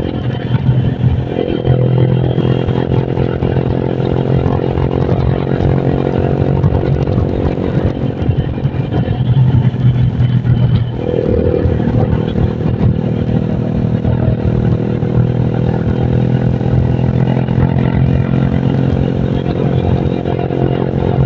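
Honda Vario scooter engine, bored up with a 55 mm piston, running steadily under way. The throttle eases off about eight seconds in and opens again about three seconds later.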